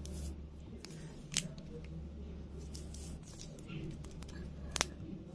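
Small handling sounds from a plastic squeeze bottle of fabric glue and craft pieces on a tabletop: faint rustling with two sharp clicks, one about a second and a half in and a louder one near the end, over a low steady hum.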